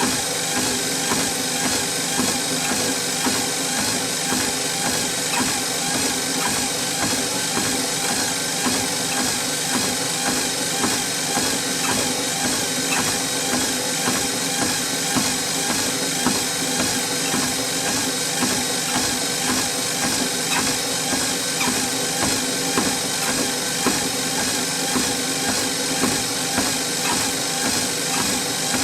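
Treadmill running with a person walking on it: a steady motor hum and belt hiss, with regular footsteps on the moving belt.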